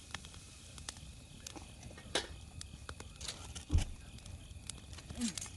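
Wood campfire crackling, with irregular sharp pops and snaps, and a heavier low thump about four seconds in.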